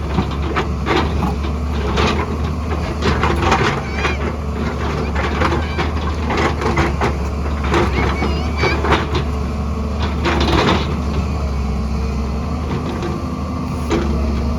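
Excavator's diesel engine running steadily under load, with irregular crunching and knocking of rock and soil as the bucket digs and moves material.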